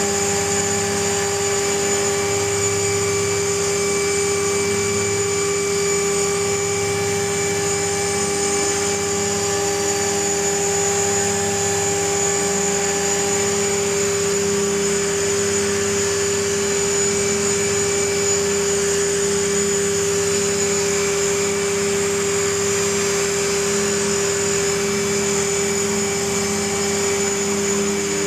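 Align T-REX 500 electric RC helicopter hovering: a steady whine from the motor and drive gears over the rushing of the spinning rotor blades, holding one even pitch.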